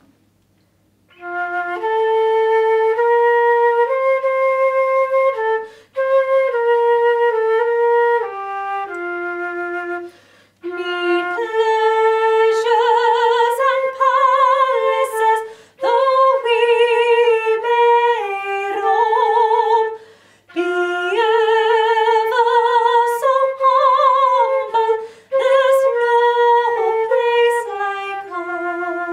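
Solo flute playing a slow melody that begins about a second in. It moves in phrases of a few seconds with short pauses between them, and vibrato on some held notes.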